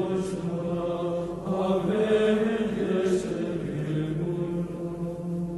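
Background music of slow sung chant: voices holding long, low notes over a steady drone, changing pitch only slowly.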